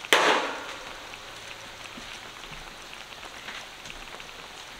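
Faint steady crackle with scattered small pops from the sauce still simmering in a hot enamelled cast-iron pot, opened by one short, louder sound right at the start.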